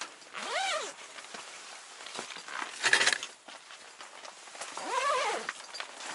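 Two drawn-out animal calls, each rising and then falling in pitch, about half a second in and again around five seconds. A sharp rustling knock about three seconds in is the loudest sound.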